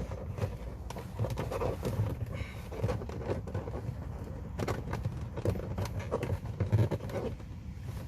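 Handling noises from refitting trim and wiring inside a car footwell: irregular plastic clicks, knocks and scrapes, over a low steady hum.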